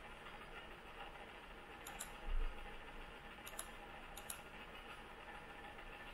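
Clicking at a laptop: three quick pairs of sharp clicks, at about two seconds, three and a half and four and a quarter, with a short low dull bump just after the first pair, over a faint steady hiss.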